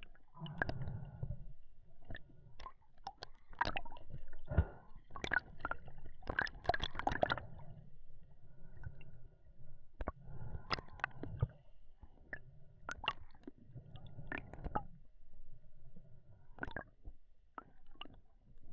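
Water sloshing and gurgling, broken by many sharp, irregular clicks and knocks.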